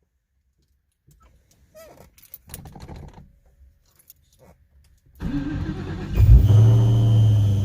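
A few light rattles and clicks, then a 2003–04 Mustang SVT Cobra's supercharged 4.6-litre V8 cranks and fires about five seconds in and settles into a steady idle. A thin, steady, high-pitched squeal rides over the idle: the screech of a failing clutch throwout bearing.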